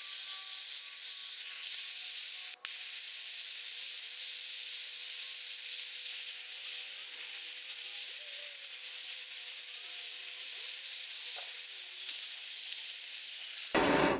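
MAPP gas torch burning with a steady hiss while heating a bent aluminium fence to straighten it. The hiss cuts off suddenly near the end.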